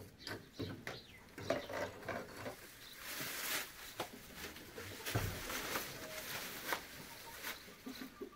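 Dry straw rustling with scattered light clicks and taps as a long metal snake-catching rod pokes and sweeps through it.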